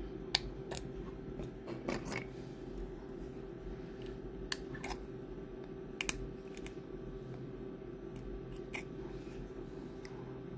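Scattered small clicks and snaps of hard PLA plastic 3D-printed lamp parts being handled and cleaned up, over a steady low hum.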